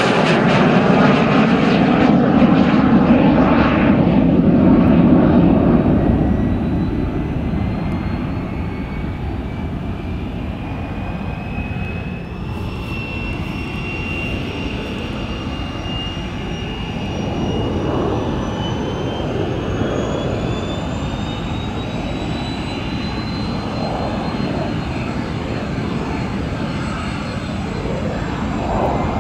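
MiG-15 jet fighter flying overhead, its loud roar fading away over the first six seconds. Then the high whine of a jet's turbine on the ground, its tones climbing slowly.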